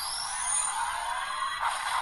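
DX Desire Driver transformation belt toy playing electronic sound effects through its small speaker: a swishing effect with one high tone gliding up and another gliding down in the first second, over music-like audio, and a change in the sound about a second and a half in.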